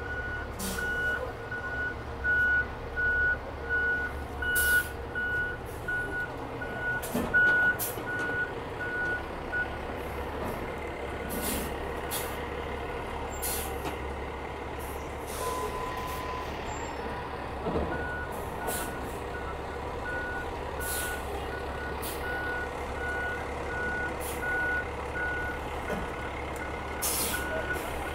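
A fire truck's reverse alarm beeping steadily over its diesel engine running. The beeping stops for about eight seconds midway, then starts again, with short hisses now and then.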